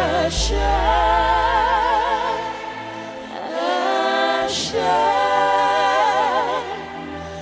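Gospel worship music: voices hold two long sung phrases with strong vibrato over sustained low bass notes.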